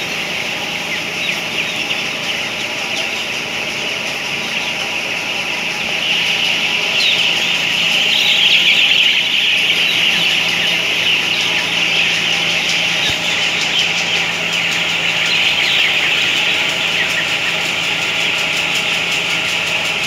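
Dense, continuous peeping of thousands of young broiler chickens packed in a poultry house, swelling louder around the middle, over a steady low hum of the house's ventilation fans.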